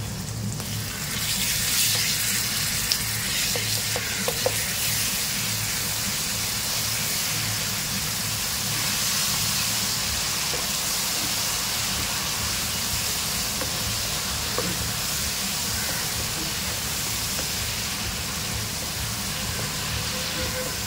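Spiced masala of onion, tomato and yogurt sizzling steadily in hot oil as it is stirred and fried down with a wooden spatula, with a few light knocks of the spatula against the pan. The frying is the bhuna stage, cooking the masala well before the rice goes in.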